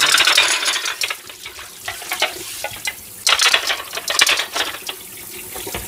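Tap water splashing over dishes in a stainless steel sink, with ceramic bowls and plates clinking as they are rinsed and moved. The water is loudest in the first second and again from about three to four and a half seconds in.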